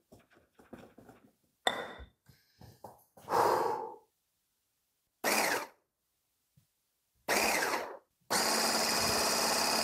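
Wire whisk clicking lightly against a glass bowl of pancake batter, then a few short loud bursts, and from about eight seconds in a hand-held immersion blender running steadily in the batter with a constant whine.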